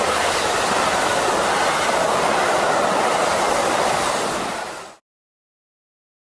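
Amtrak California Zephyr's Superliner bilevel passenger cars passing at speed: a steady rush of wheels on rail and air. The sound fades out quickly about five seconds in.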